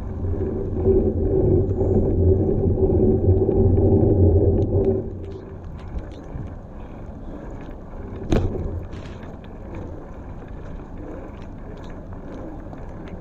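Bicycle tyres rolling over wet stone paving, a steady rumble that is loudest for the first five seconds and then drops to a quieter rolling noise. A single sharp knock about eight seconds in.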